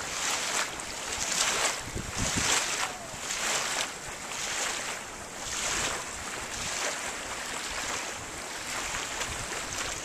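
Pencil scratching on paper in a series of short strokes, about one every half second to a second, as small wave marks are sketched.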